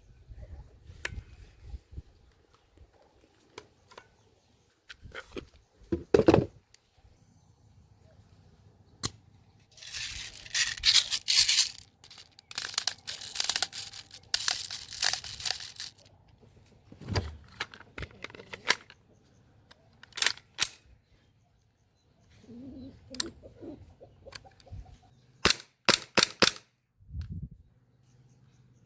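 Airsoft Glock 18C replica pistol firing: sharp cracking shots, some single and some in rapid bursts, the longest runs a third to half way through. Scattered clicks and a few dull knocks come between them.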